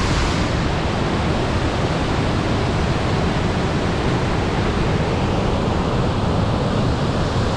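River waterfall rushing: a steady, loud roar of falling water.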